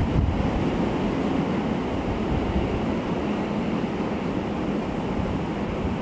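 Storm wind gusting up to about 60 mph, rushing through bare trees and buffeting the microphone in a loud, steady rush.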